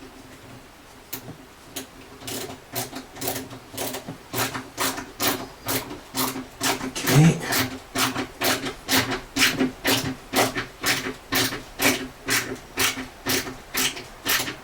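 A screwdriver driving a screw into the wooden door edge by hand, a short sharp rasp with each turn at about two to three a second, louder from about four seconds in as the screw bites in.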